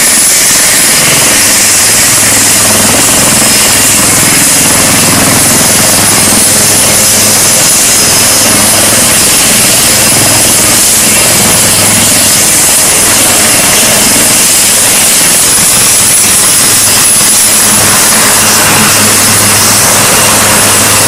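HAL Light Combat Helicopter running on the ground with its rotors turning: a loud, steady mix of rotor noise and a high turbine whine from its twin Shakti turboshaft engines.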